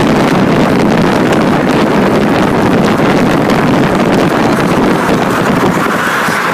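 Loud, steady wind buffeting the microphone over the road noise of a car travelling at speed.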